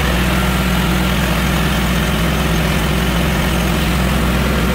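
Engine of a Lucas Mill portable sawmill running steadily: a constant, even drone with no change in speed.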